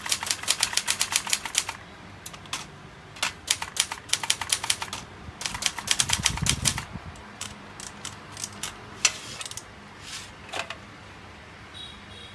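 Vintage Brother Deluxe typewriter being typed on: quick runs of key strikes at the start and around six seconds in, with slower single strikes between and later, and a low rumble around six seconds in.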